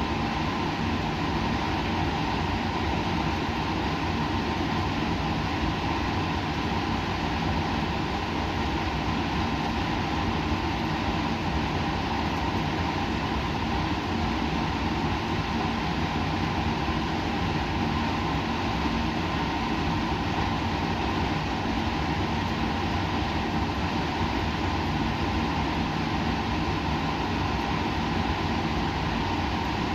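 Steady laboratory background noise: an even hiss with a low hum and a few faint steady tones, unchanging throughout.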